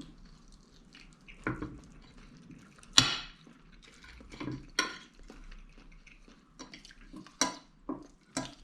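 Cutlery and a plate clinking in scattered sharp taps during a meal. The loudest is about three seconds in, with others near five and seven and a half seconds.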